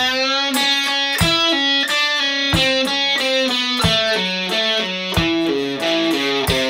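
Electric guitar playing a slowed-down F-sharp minor pentatonic lead phrase, a run of evenly spaced single notes, over a steady beat about every two-thirds of a second.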